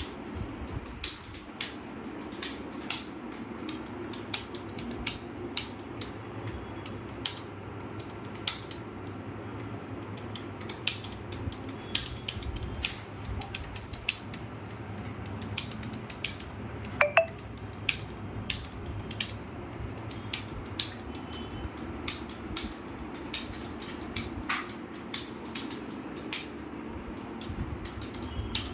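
Computer keyboard keys being typed: irregular sharp clicks, a few a second, over a steady low hum.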